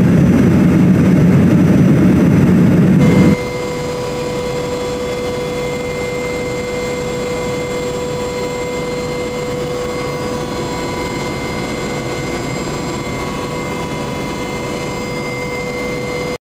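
Loud aircraft engine and rotor noise for about the first three seconds, then the steadier cabin noise of an AW101 Merlin helicopter in flight, with a steady whine at several pitches, cutting off abruptly near the end.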